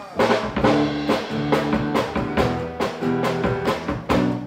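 Live acoustic band playing the instrumental intro of a song: strummed acoustic guitar, acoustic bass guitar and a Tama drum kit. The band comes in together right at the start, with drum hits keeping a steady beat.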